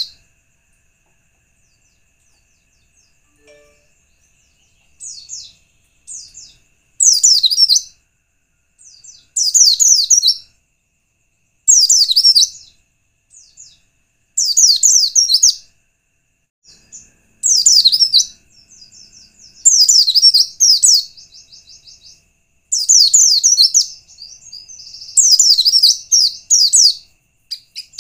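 White-eye (pleci) song played as a lure call to set other white-eyes singing: short, high, fast twittering phrases, each about a second long, repeating every two to three seconds after a few quiet seconds at the start. A faint steady high tone runs underneath.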